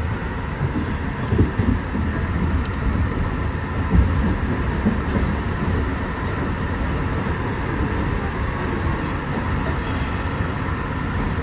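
Kawasaki R-62 subway train running on elevated track, heard from inside the car: a steady rumble of wheels on rail with a faint steady whine, and a heavier knock from the wheels about a second and a half in and again about four seconds in.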